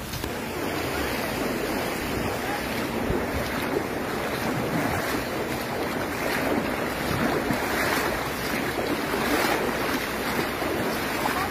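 Floodwater from a cloudburst flowing in a broad sheet over the ground, a steady noisy wash of moving water.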